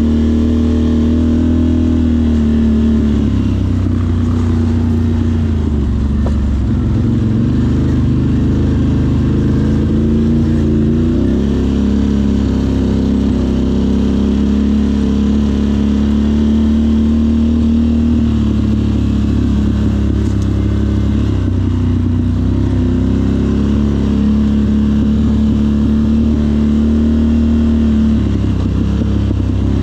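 Off-road vehicle engine running under way, its pitch stepping up and down every few seconds with the throttle.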